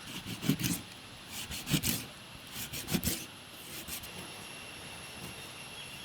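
Knife scraping and scoring a whole fish on a board: three groups of rasping strokes with light knocks in the first three seconds, then quiet.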